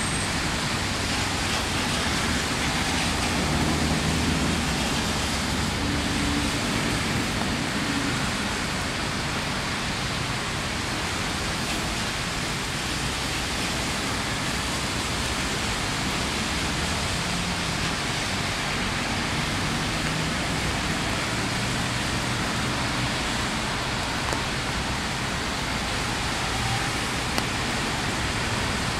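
Steady rain falling, an even hiss that does not let up. A faint low rumble of distant road traffic comes and goes underneath.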